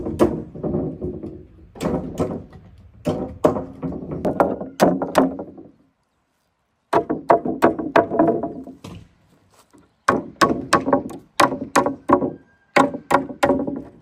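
Repeated hard blows on wood in quick runs of strikes, each with a short hollow ring, the sound cutting out completely for about a second near the middle.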